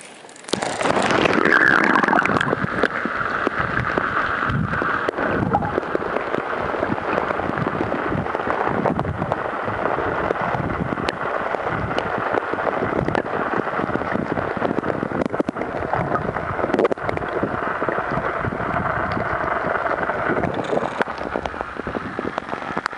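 Sea water heard through a camera held under the surface: a steady rushing, gurgling noise with many scattered clicks, starting suddenly about half a second in as the camera goes under.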